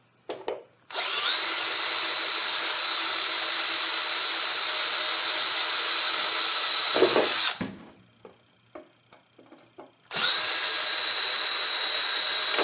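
Cordless drill drilling out the pop rivets that hold a jack in a synthesizer's rear panel. It makes one long steady run of about six seconds, then a pause with a few light clicks, then a second run of about three seconds.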